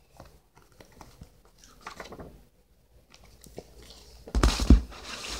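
Paperback book being handled at a table: faint rustles and small taps, then a louder bump and knocks about four and a half seconds in as the book is swung around close to the microphone.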